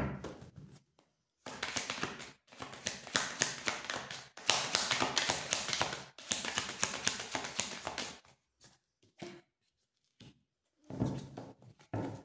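A tarot deck being shuffled by hand: quick papery clicks and slaps of the cards in several spells of a second or two, stopping about eight seconds in, with another short burst near the end.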